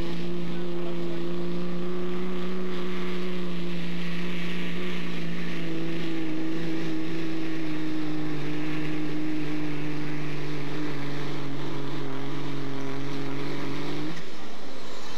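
Diesel pickup truck engine held at full throttle, pulling a weight-transfer sled. Its steady note sags slowly in pitch as the load builds, then drops off suddenly about fourteen seconds in as the pull ends. A high whine falls in pitch right after.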